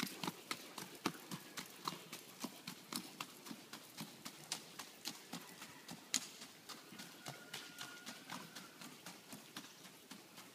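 Hoofbeats of a young filly ridden at a quick, even gait over packed dirt and grass, about four beats a second, slowly fading as she moves away.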